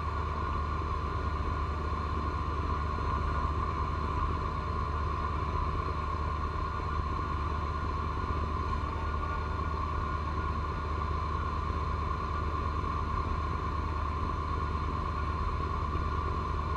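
John Deere 1025R compact tractor's three-cylinder diesel running steadily while its PTO-driven 54-inch front snow blower throws heavy wet snow. The sound is a steady low engine note with a constant high whine above it.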